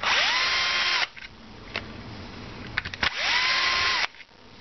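Bosch PSR cordless drill-driver backing out the screws that hold a jigsaw's gearbox plate, run twice for about a second each. Each run is a motor whine that rises quickly to a steady pitch, then stops.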